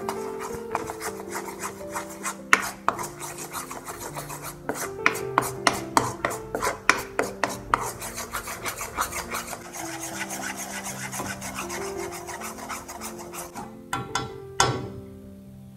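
Steel spoon scraping and stirring gram flour roasting in ghee in an iron kadai: a fast run of rasping scrapes and clicks against the pan that stops with a last loud scrape near the end. Background music with steady notes plays underneath.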